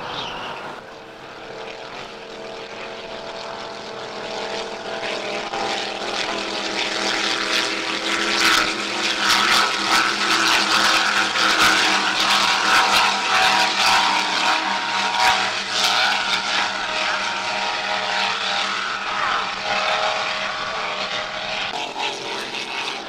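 Offshore racing powerboats' engines droning at speed, swelling to a loud pass in the middle and then fading.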